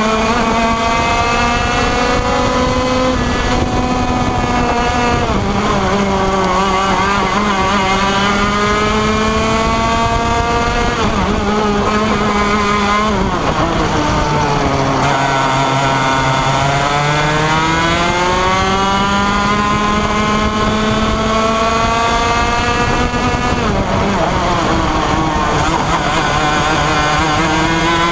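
125cc two-stroke TaG racing kart engine at race pace, heard onboard. Its pitch falls as the driver lifts for the corners, deepest about halfway through and again shortly before the end, and climbs again on the straights.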